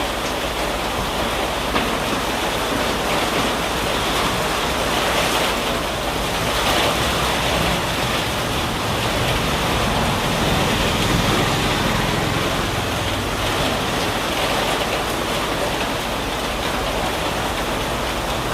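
Steady rain falling, a continuous even hiss of rain on surfaces.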